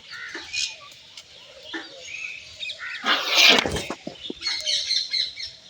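Many birds chirping and calling, with short, high calls scattered throughout and one loud, harsh burst about three seconds in that lasts under a second.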